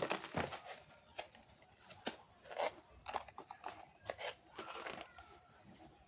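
Crinkling and tearing of packaging, with scattered light clicks and knocks as small objects are handled.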